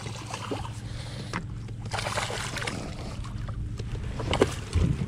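Water splashing and sloshing around a fishing kayak while a just-landed bass is handled, over a steady low hum, with a few sharp knocks about four and a half seconds in.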